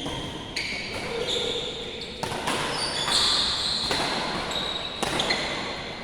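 Badminton play on an indoor court: sharp racket hits on the shuttlecock at irregular intervals, mixed with many short, high-pitched squeaks of players' shoes on the court floor.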